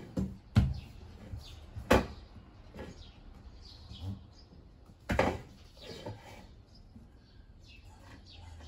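A few sharp knocks, the loudest about half a second and two seconds in, and a longer clatter about five seconds in, with small birds chirping faintly in the background.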